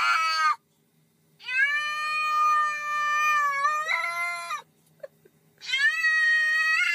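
Orange cat meowing in long drawn-out calls: the tail of one call, then two long meows of about three seconds each, starting about one and a half and five and a half seconds in.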